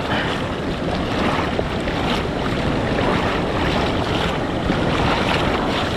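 Steady rush of river water pouring through a dam and running in a strong current.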